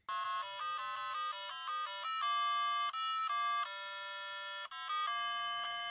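Computer beeper melody: a tune of stepped, evenly held electronic tones from the IBM PC Convertible's small built-in speaker. It starts abruptly and keeps going, one note after another.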